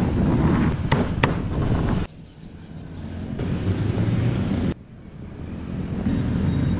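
Street traffic with engines running, under which a cleaver chops twice on a wooden block about a second in. The sound drops out suddenly twice and fades back up.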